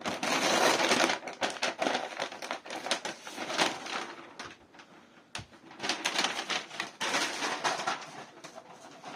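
Laptop packaging being handled and opened: irregular rustling and crinkling of paper and plastic wrap with scattered clicks, and one sharp click about halfway through.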